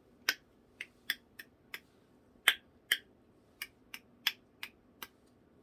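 A hand-held ASMR fidget toy being snapped over and over: about a dozen sharp, short clicks at uneven intervals.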